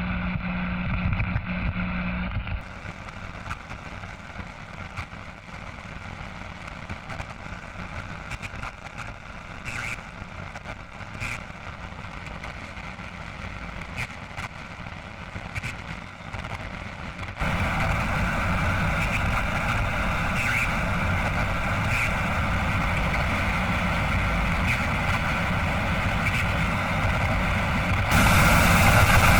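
Radio static and interference: a steady hiss with a fixed hum, cutting abruptly from one take to the next several times. The quieter middle take carries scattered faint crackles.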